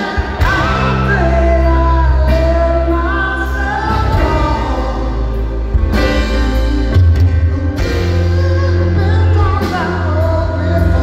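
Live rock band: a male singer's voice over keyboard, with deep sustained bass notes underneath that change about seven seconds in, amplified through a concert PA.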